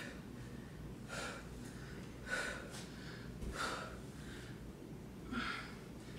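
A woman breathing hard during a lunge exercise: four short, sharp exhalations a second or so apart.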